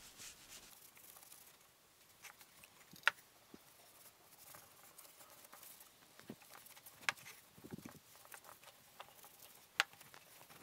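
Cloth rag rubbing wax into a wooden chair frame, with the rag and its plastic bag handled in gloved hands: soft rubbing and rustling with a few sharp clicks, the loudest about three, seven and ten seconds in.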